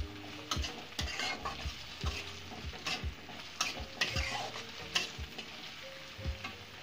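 Chopped capsicum and onion sizzling in hot oil in a kadhai on high flame, with a spatula scraping and knocking against the pan about twice a second as they are stir-fried.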